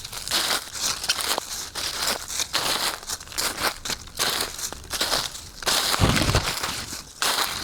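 Footsteps crunching through dry fallen leaves at a walking pace, a crackling step about every half second. A low thud about six seconds in.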